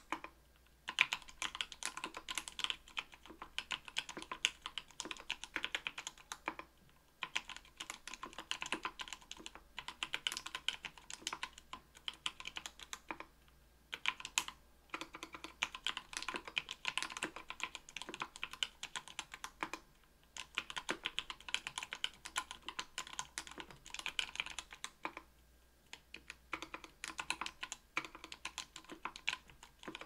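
Typing on an Octagon V3 mechanical keyboard with Krytox 105-lubed Everglide Sakura Pink 45 g linear switches in an aluminium plate and GMK keycaps: a steady, dense run of keystroke clacks, broken by short pauses about every six seconds.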